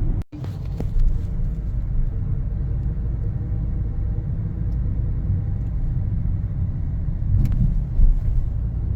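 Steady low rumble of a car driving along a road: tyre and engine noise as heard inside the cabin, with a brief dropout just after the start.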